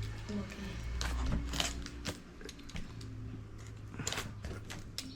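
Scattered light clicks and rustles of a board game's packaging being handled and opened by hand, over a low steady hum.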